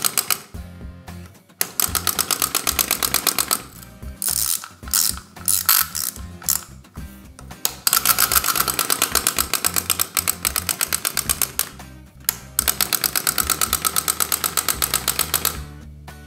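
Clockwork wind-up toy mechanism clattering as its spring unwinds, in rapid runs of about nine clicks a second that stop and start again, with a few looser clicks between the runs.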